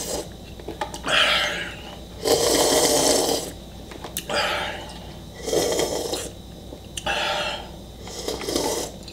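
A man drinking ramen broth straight from the bowl: a run of loud slurps and gulps with heavy breaths between, one about every second or so. The longest and loudest draw comes a couple of seconds in.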